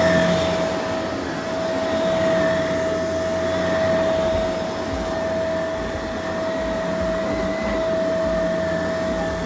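Shark vacuum cleaner running steadily, a continuous rush of air with a steady high whine, its loudness swelling and easing a little as it works.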